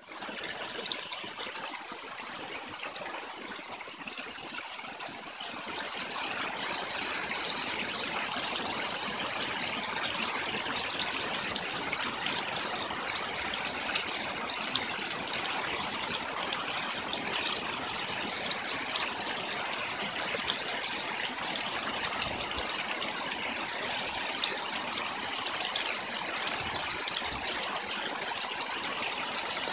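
Fast-flowing woodland stream rushing over rocks and small cascades: a steady rush of water that grows a little louder over the first few seconds, then holds.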